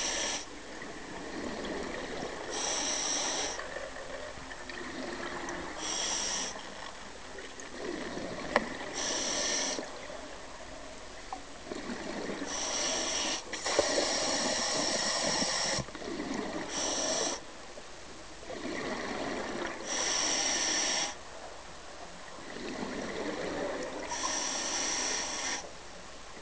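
Scuba regulator breathing heard underwater: a short hiss roughly every three to four seconds, alternating with the gurgle of exhaled bubbles, in a slow steady rhythm.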